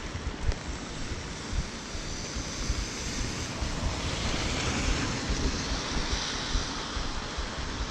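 Rain falling on an umbrella held overhead and a steady hiss of rain, with wind buffeting the microphone as a low, uneven rumble. The hiss grows louder for a few seconds in the middle.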